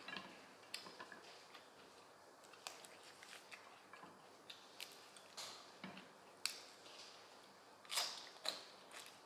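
Close-miked eating sounds: soft, scattered mouth clicks and small crunches of raw vegetables being chewed, with a louder crunch about eight seconds in and another just after.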